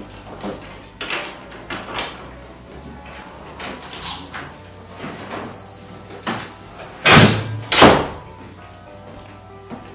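Background music with a steady beat, cut through about seven seconds in by two loud, short bursts of noise about half a second apart.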